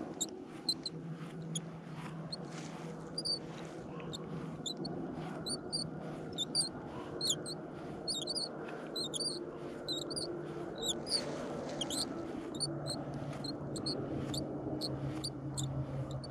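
Spinning reel's handle squeaking as it is turned during a slow retrieve: short high chirps, about two a second, over a low steady hum. The handle is dry and probably wants a spray of WD-40.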